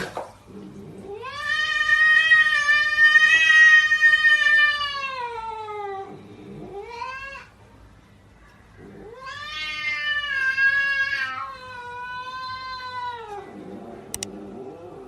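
A cat yowling: two long drawn-out wails, each falling in pitch at the end, with a short call between them.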